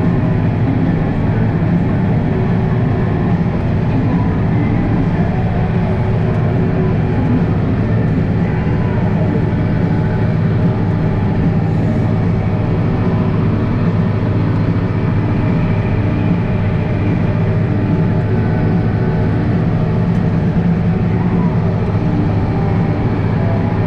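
International Harvester 1586 tractor's turbocharged inline-six diesel running steadily while grading a gravel driveway with a blade.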